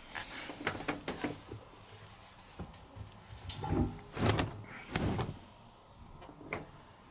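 Handling of washed laundry at a front-loading washing machine: a few light knocks and rustles, then heavier rustling and knocks of clothes or the machine's door being moved about four to five seconds in.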